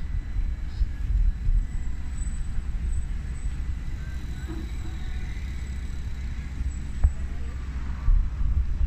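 Outdoor ambience made up mostly of a steady, uneven low rumble, with a faint high whine over it and a single sharp click about seven seconds in.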